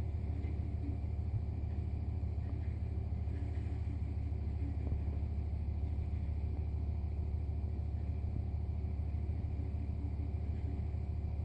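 A steady low rumbling hum that stays constant throughout, with nothing standing out above it.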